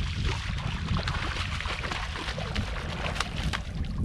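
Hooked smallmouth bass thrashing and splashing at the surface as it is reeled in, with many short splashes over a steady low rumble.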